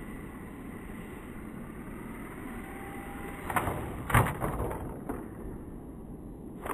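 Gusty wind rumbling over the microphone, broken by a few short dull knocks about three and a half, four and five seconds in, with a faint steady high whine in the background.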